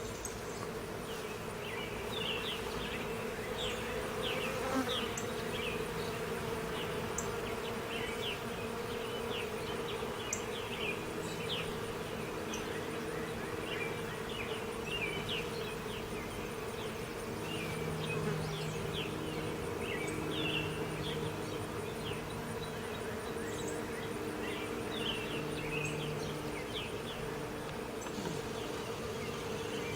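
Several bees buzzing in a steady hum whose pitch shifts as individual bees come and go, with songbirds chirping repeatedly in the background.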